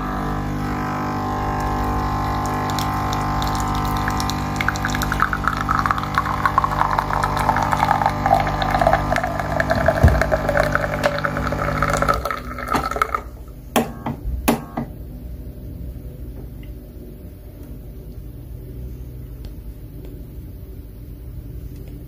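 Lavazza A Modo Mio Voicy capsule coffee machine brewing: its pump hums steadily as coffee pours into a mug, with a tone that slides down in pitch partway through. The pump stops about thirteen seconds in, followed by a couple of sharp clicks and a faint low hum.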